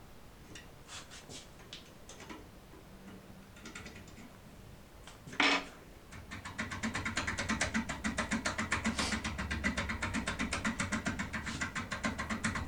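MCM E8 foil lockpick being worked in a Spanish MCM cylinder lock, with two layers of foil: a few light clicks, a sharper click about five and a half seconds in, then from about six seconds a rapid, even run of metallic clicks, several a second, as the pick is pressed hard and sharply to take the impression of the pins.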